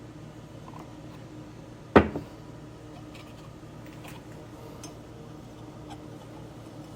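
A steady low hum with one sharp knock about two seconds in, followed by a few faint clicks.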